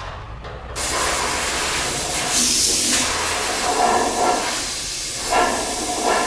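Compressed-air blow gun hissing into a sandblasted steel frame rail, blowing out loose rust and sand. The air starts about a second in and stops at the very end, with tones coming and going as the nozzle moves along the rail.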